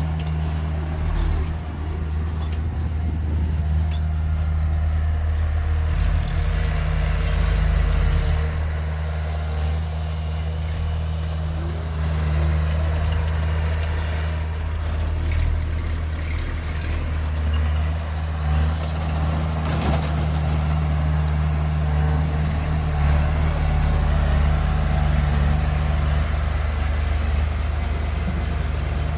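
Heavy diesel earthmoving machinery running steadily: a deep, constant engine drone, with the working noise of a bulldozer loading a dump truck.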